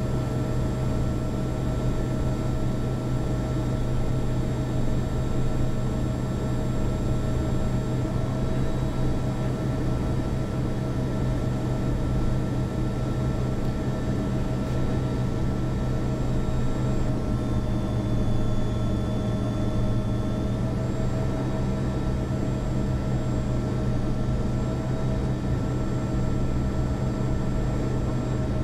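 Steady cockpit noise of a Learjet 45 on final approach: the rush of airflow and the hum of its turbofan engines, with several steady tones held at one pitch throughout.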